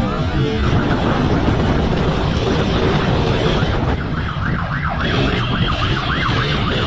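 Wind and road noise rushing past a camera mounted on a moving motorcycle, with a siren yelping rapidly up and down coming in clearly about four seconds in.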